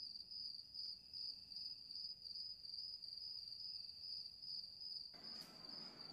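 Faint, steady high-pitched trill of a cricket, pulsing finely without a break. Near the end a soft hiss of room noise comes in under it.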